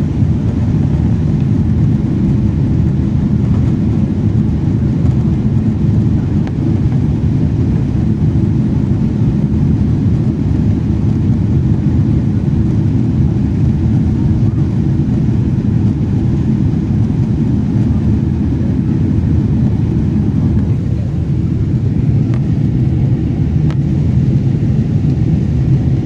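Steady low rumble of a Boeing 777 in flight, its jet engines and airflow heard inside the passenger cabin.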